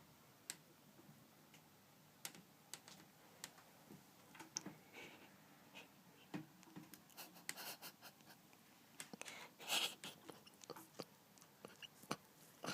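Quiet room with scattered faint clicks and rustles, and a few short breathy puffs in the second half, the loudest just under ten seconds in. These are a sleeping woman's breaths between snores, heard close up over handling noise.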